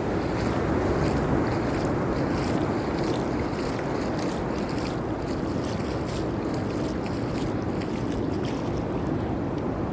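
Steady wash of ocean surf mixed with wind rumbling on the microphone, swelling slightly about a second in.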